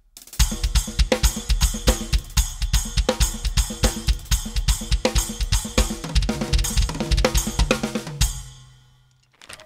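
Drum kit played in a busy, fast groove of kick, snare and cymbal accents, demoing a Meinl 8-inch Byzance Dark splash cymbal. The playing stops about eight seconds in and the cymbals ring out and fade.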